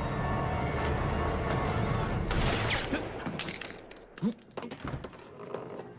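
Tense film-score music that breaks off about two seconds in for a loud burst of gunfire, followed by several more sharp shots and crashes, one especially loud near the middle.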